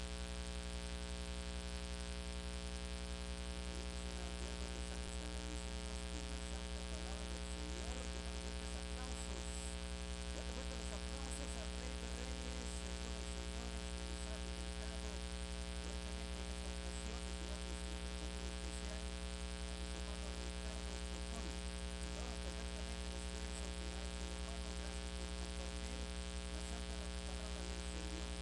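Steady electrical mains hum with a buzz, holding at one pitch with many overtones and never changing.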